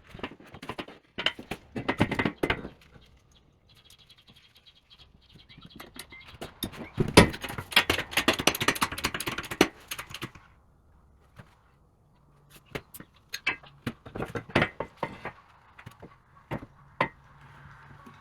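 Clanking and knocking of thick steel pieces and tools being handled and set in place, with a dense spell of metal clatter in the middle and scattered sharp clicks near the end.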